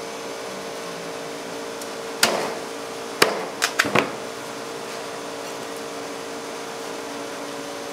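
A steady machine hum, with a few sharp knocks of hard objects striking: one about two seconds in, then a quick cluster of four between three and four seconds in.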